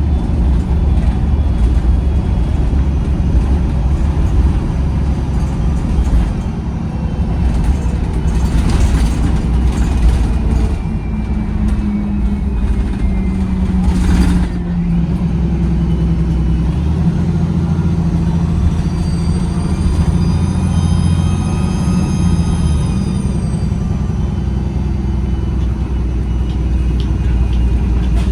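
Bus diesel engine running under way, heard from the back seat: a steady low drone whose pitch rises about halfway through as it pulls harder. A short hiss comes just before that, and a faint whine rises and falls near the end.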